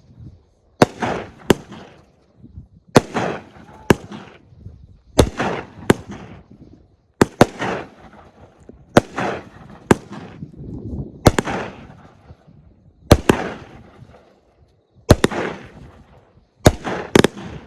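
Consumer aerial fireworks firing one shot about every two seconds, about nine in all. Each shot is a sharp launch pop followed within a second by a loud burst, with a short crackling tail that fades away.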